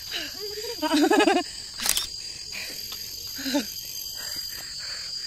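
A person's voice makes a wavering, wordless sound about a second in and again more briefly near the middle, over a steady, high-pitched insect drone. A single sharp click comes near two seconds in.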